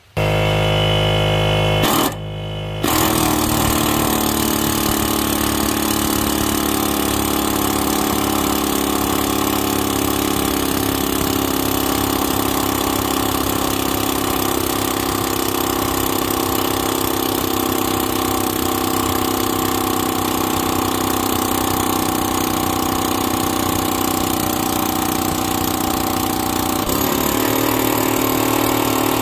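Pneumatic air hammer running continuously, its bit held against a Honda GX390 engine's crankshaft to drive off a stuck pressure-washer pump. It stops briefly about two seconds in, then runs on.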